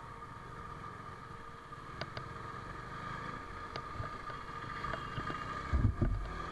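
KTM RC390's single-cylinder engine running at steady revs under way, with a few light clicks and a cluster of low thumps near the end.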